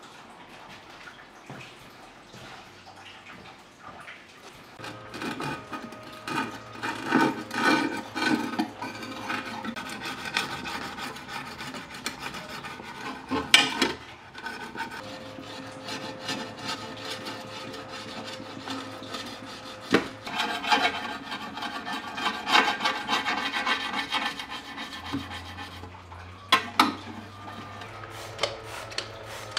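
Plastic scraper rubbing and scraping along aquarium glass in repeated rough strokes, taking residue off the glass. A few sharp knocks come between the stretches of scraping.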